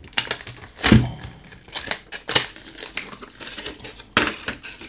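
Clear plastic blister packaging crackling and clicking as an LED video light is pried out of it, with a few heavier knocks, the loudest about a second in.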